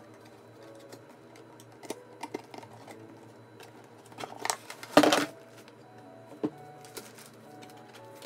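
Cardboard box and clear plastic packaging handled by hand: scattered clicks, taps and rustles as the box is opened and the plastic tray lifted out, with one loud crinkling knock about five seconds in.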